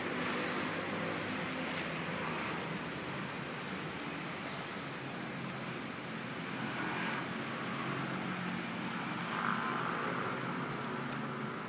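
Steady hum of road traffic, an even wash of passing cars, with a few faint ticks near the start and near the end.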